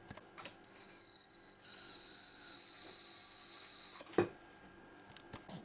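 Ultrasonic dental scaler running at the cat's teeth: a steady high-pitched hiss with a thin whine, for about three seconds, then cutting off suddenly. A sharp click follows just after, with a few lighter clicks around it.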